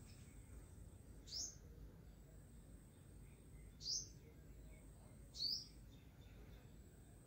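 Three short, high chirps from a small bird, each falling in pitch, spaced a couple of seconds apart over a faint low background hum.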